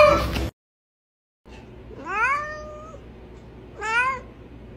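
Domestic cats meowing. One meow ends about half a second in. After a short gap comes a rising meow held for about a second, then a shorter meow near the end.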